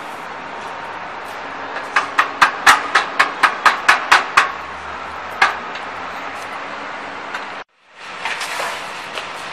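Quick run of sharp metal knocks, about a dozen at roughly five a second, then one more strike a second later: a hammer striking steel parts of a chalk making machine's frame during assembly.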